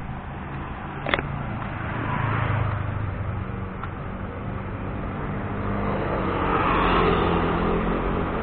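Street traffic: a vehicle engine running steadily close by, with a passing vehicle growing louder toward the end. A short click about a second in.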